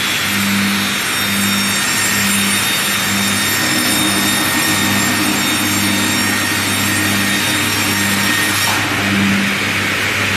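Circular log sliding table saw running and cutting lengthwise through a log: a steady low motor hum under the continuous noise of the blade in the wood.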